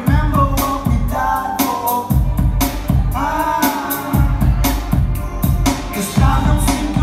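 Live song with a sung vocal over a programmed beat with a heavy low bass and regular percussive hits.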